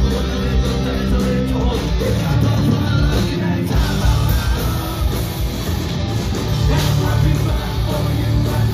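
A skate-punk band playing live and loud: distorted electric guitars, bass and pounding drums, with a singer's voice over the top.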